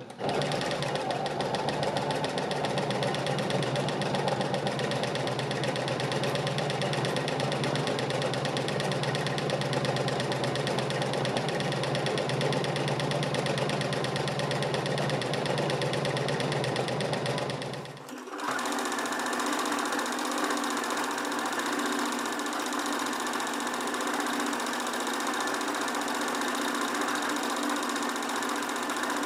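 Domestic sewing machine running fast and steady, its needle stitching through a layered quilt under a free-motion quilting foot. About two-thirds of the way through it breaks off briefly and then runs on with a slightly different tone.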